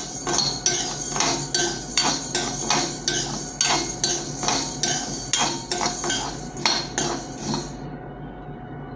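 Steel spoon stirring and scraping whole black gram dry-roasting in a metal kadai: quick rattling scrapes of grains and spoon on the pan, about two to three a second, dying away about seven and a half seconds in.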